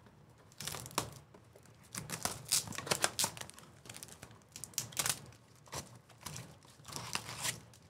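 Trading cards and pack wrappers being handled at a table: irregular clusters of quick, sharp clicks with light crinkling.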